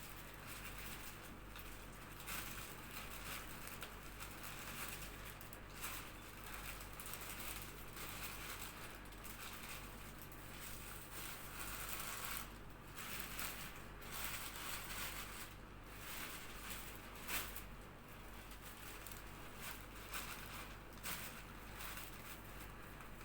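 Small items being handled and set out: irregular rustling with scattered light knocks and clicks, over a steady low hum.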